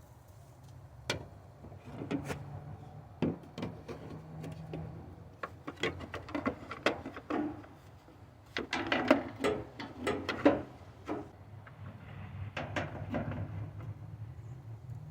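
Irregular knocks, clicks and clatter of hands-on work on a van's body panels, densest in the middle of the stretch, over a low steady hum.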